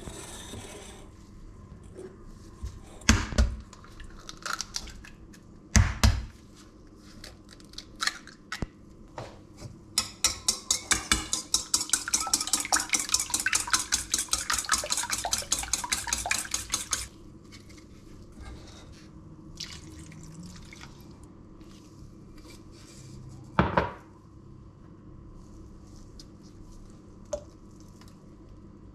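A wire whisk beating eggs in a stainless steel bowl: a fast, even clinking of metal on metal that lasts about seven seconds in the middle. Two sharp knocks come a few seconds apart before it, and a third comes well after it.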